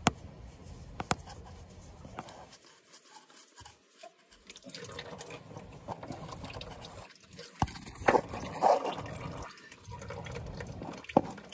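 Engine oil running and dripping out of a loosened oil filter housing into a drain tray, with a few sharp clicks in between.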